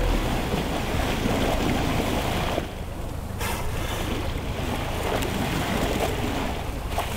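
Wind buffeting the microphone over sea water washing around a small boat: a steady rushing noise that thins briefly about three seconds in.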